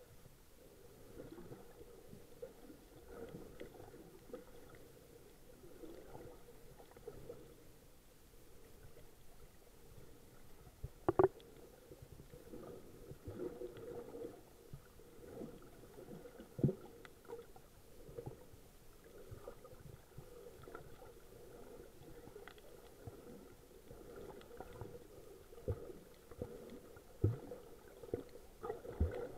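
Muffled underwater sound from a snorkeler's camera held under water: low sloshing and gurgling of moving water with scattered dull thumps, the loudest about eleven seconds in and several more near the end.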